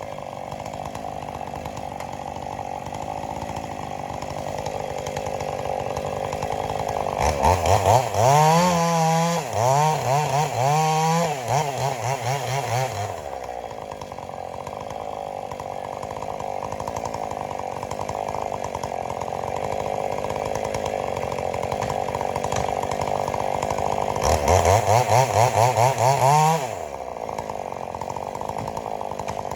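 Gasoline chainsaw running steadily, then revved hard in repeated throttle surges twice, from about 7 to 13 seconds in and again from about 24 to 27 seconds in, while cutting up a felled tree.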